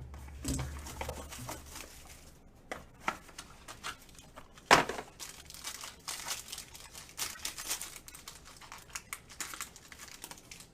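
Trading-card box packaging being torn open and handled: a run of crinkling, rustling crackles, with one sharp, loud tear or snap about five seconds in.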